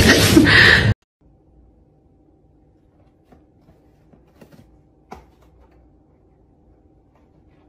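A loud, noisy burst with falling pitched cries cuts off abruptly about a second in. Then only faint soft scratches and a few light knocks of a cat pawing inside a torn cardboard box, over a low steady hum.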